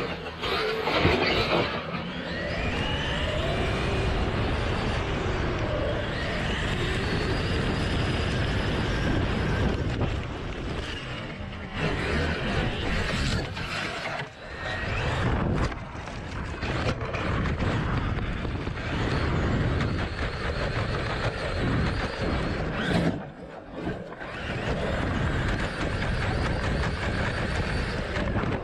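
Large RC monster truck driving at speed, heard from a camera mounted on it: its motor whines up and down in pitch over a steady rumble of tyres and wind, with a couple of brief lulls. At times branches and brush scrape against it as it drives through bushes.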